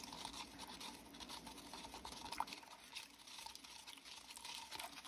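Faint scraping and clicking of a stir stick mixing Resincrete powder into water in a plastic cup.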